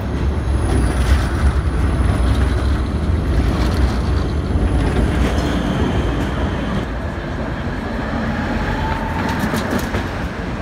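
City trams running past on street track, with a steady loud rumble of steel wheels on rail and a thin high whine in the first few seconds. A short wheel squeal and a cluster of sharp clicks come about nine seconds in.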